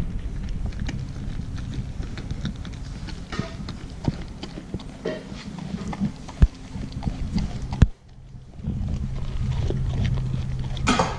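A dog eating raw offal from a plastic tray: wet chewing, licking and irregular small clicks, with two sharp knocks about six and a half and eight seconds in. A low steady hum comes in over the last couple of seconds.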